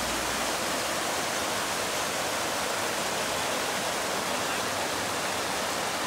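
Mountain creek water rushing and cascading over rocks: a steady, even rush.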